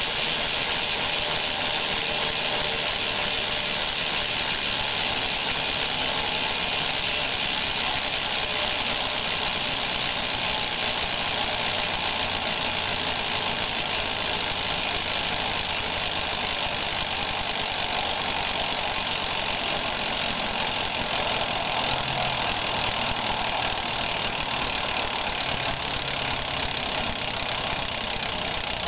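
Alienation Axis cassette hub on a spinning BMX rear wheel, freewheeling: its pawls click so fast that they blur into one steady buzz.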